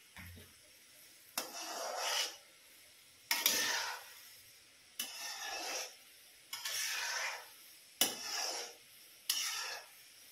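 Perforated metal slotted spoon scraping around the inside of an iron kadhai in hot ghee while turning frying gulab jamun: six strokes about every second and a half, each a click followed by a rasping swish.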